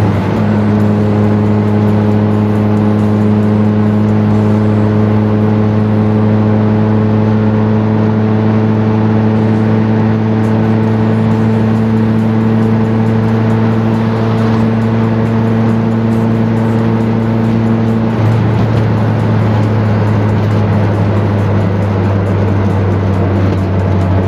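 Suzuki Forsa's engine running at high, steady revs, heard from inside the cabin as a constant drone while the car is driven hard on a highway. About 18 seconds in, the pitch steps down slightly.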